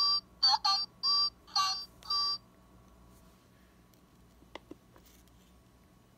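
Handheld mini whack-a-mole electronic game playing short chirpy electronic sound effects while its mole buttons are pressed: five quick bursts over about two seconds, then it stops. A couple of faint clicks follow a couple of seconds later.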